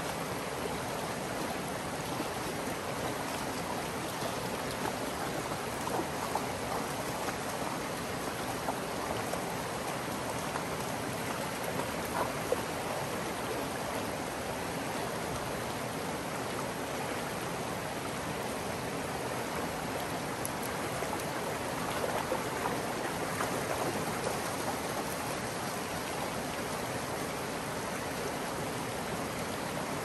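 Shallow creek water running steadily, with a few light splashes now and then.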